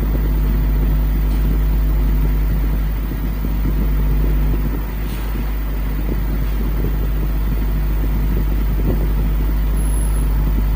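Small high-speed ceiling fan running after repair, its shaft reseated tight in the bearing: a steady electric motor hum.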